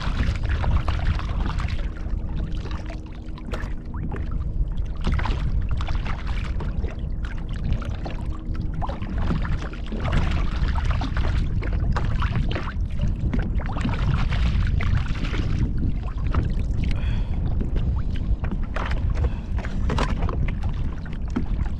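Wind rumbling on the microphone over water lapping and splashing against a fishing kayak's hull, with scattered small knocks and splashes.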